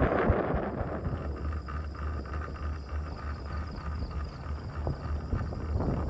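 Chairlift running: a rhythmic low rumble from the haul cable and its wheels, with faint clicks. Wind buffets the microphone in the first moment.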